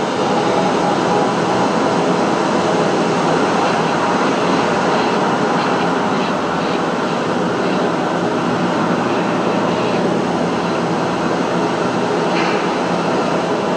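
Steady rush of falling water from the hydroelectric segment of a film soundtrack, heard through theatre speakers.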